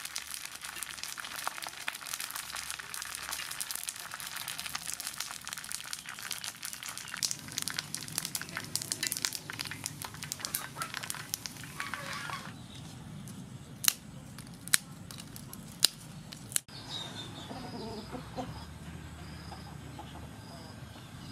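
Dried pork skin frying in a wok of hot oil: dense crackling and sizzling as the pieces puff up, lasting about twelve seconds. Then a few separate sharp snaps, and after a cut a quieter stretch with faint high chirps repeating.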